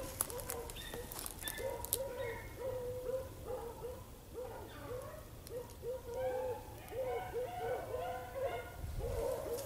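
A pack of beagles baying on a rabbit's scent: a steady run of short yelping notes from several dogs at slightly different pitches, overlapping, a couple a second. A few sharp clicks come in the first two seconds.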